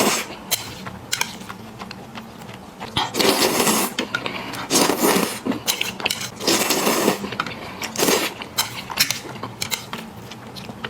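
Someone eating spicy noodles: several short bursts of slurping and chewing, with small clicks in between.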